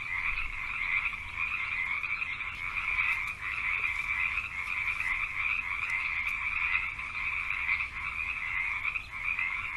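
A dense chorus of many frogs calling at once, a continuous high-pitched calling that holds steady without a break.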